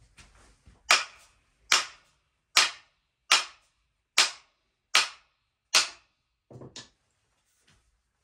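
A hammer striking the top of an axe handle held upright: seven sharp, evenly spaced blows a little under a second apart, each with a brief ring, then a lighter double knock.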